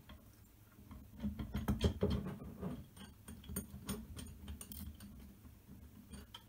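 Scattered small clicks, taps and scrapes of screws and metal frame parts being handled and turned in by hand during kit assembly. They are busiest between about one and two and a half seconds in.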